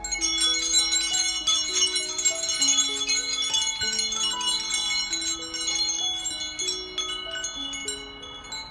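Background music: a gentle melody of held notes under a dense shimmer of high, tinkling chime-like tones, which thins out near the end.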